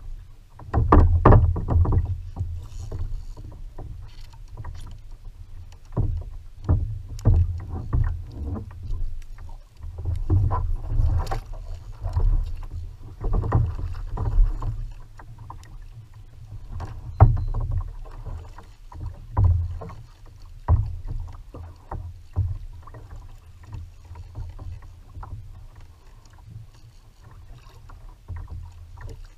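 Water slapping and sloshing against a plastic sit-on-top kayak's hull, heard from a camera mounted on the kayak, with uneven low rumbling and frequent sharp knocks and clicks as the boat rocks.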